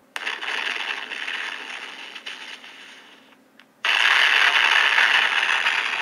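AI-generated explosion sound effect: two noisy blasts, the first fading away over about three seconds, the second starting suddenly near the four-second mark and fading in turn. Thin, with no deep bass.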